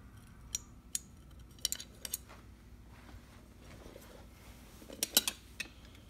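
Light metallic clicks and clinks from the steel parts of an antique mortise lock being handled and fitted together: a few scattered clicks in the first two seconds, then a quick cluster of louder ones about five seconds in.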